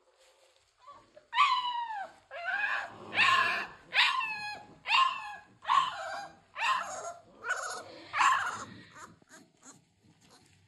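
A three-week-old American Bully puppy crying: a run of about nine high-pitched whimpering cries, each sliding down in pitch, roughly one a second.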